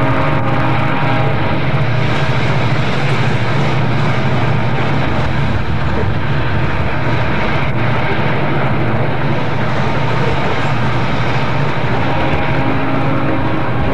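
Loaded coal train passing close by: a steady low drone of diesel locomotive engines under the continuous rumble of hopper cars rolling on the rails.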